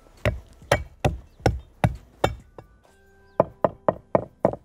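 Kitchen knife chopping garlic on a cutting board: a run of about seven even strokes, a short pause, then about five quicker ones.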